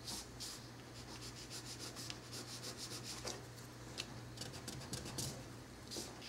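Pencil strokes on paper: a run of short, light, scratchy strokes at an uneven pace as a sketch is drawn with very little pressure, over a steady low hum.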